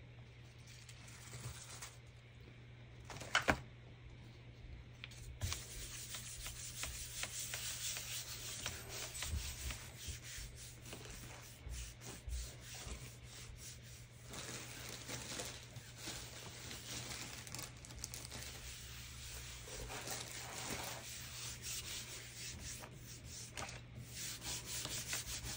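Paper being rubbed by hand onto a gel printing plate to pull a monoprint: a dry, scuffing rub made of many short strokes. A sharp tap comes about three and a half seconds in.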